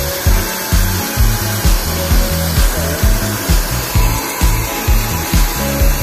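Large hand-held hair dryer blowing steadily while it styles hair over a round brush, under music with a heavy, regular bass beat.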